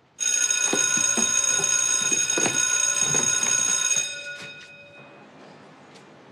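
School bell ringing steadily for about four seconds, then dying away as the ring fades.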